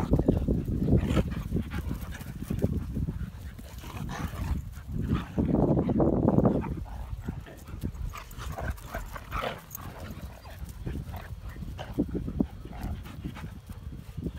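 German Shepherd dogs and puppies play-fighting, with dog vocalisations coming in uneven bursts, loudest near the start and about six seconds in.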